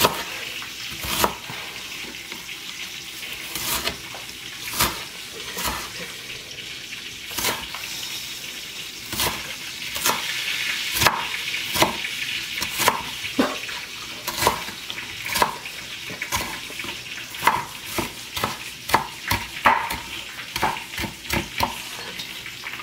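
Goat meat frying in a pan with a steady sizzling hiss, broken by irregular sharp knocks about once a second.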